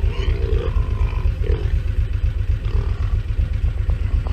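Large pigs grunting in short, irregular bouts over a constant heavy low rumble.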